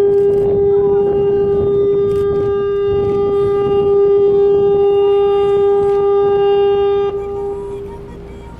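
Ship's horn of the JMSDF vessel YDT-3 sounding one long blast as it leaves harbour: a steady low tone with overtones, cutting off about seven seconds in and trailing away over the next second.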